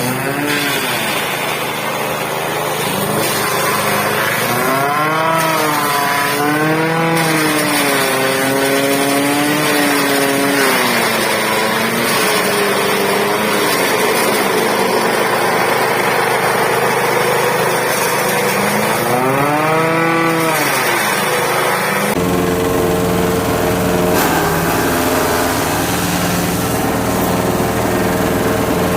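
Small engine driving a homemade chaff cutter, its pitch swinging up and down several times as the speed changes. About two-thirds of the way in the sound changes abruptly to a steadier, lower engine run.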